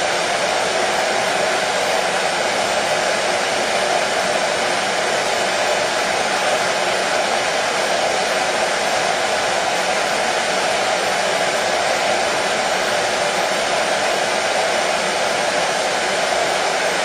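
Electric hair dryer running steadily: a constant whooshing blower noise, strongest in the low-middle range, with no change in speed.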